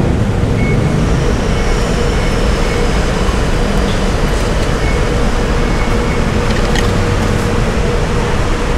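Steady rumble of road traffic with a constant hum over it.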